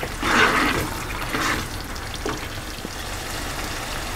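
Thick masala gravy sizzling in a pan while being stirred, with two scraping spoon strokes in the first two seconds, then a steady low sizzle.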